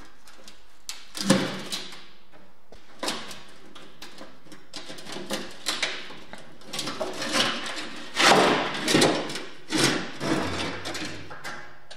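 Rusty sheet-steel oven casing being handled: metal clicks, scrapes and clanks as the clasp latch is worked open and the hinged shell halves are swung apart. There is a sharp click a little over a second in, and the loudest clanks come about eight to ten seconds in.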